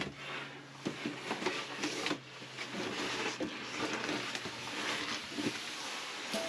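Rustling, scraping and small knocks of cardboard being handled and pressed against a cabin ceiling, in a small boat cabin, over a faint steady low hum.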